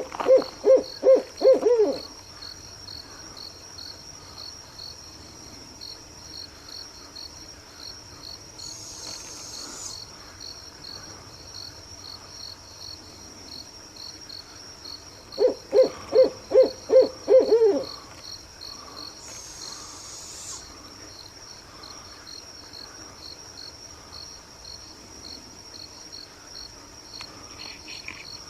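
An owl calling at night: a quick run of about seven hoots at the start, then another such run about halfway through. Crickets chirp steadily throughout.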